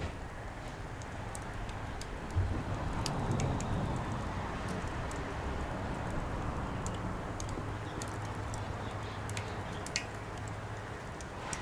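Wood fire crackling in a fire pit, with scattered sharp pops, over a steady low rumble and a broad rushing noise that swells a few seconds in and slowly fades.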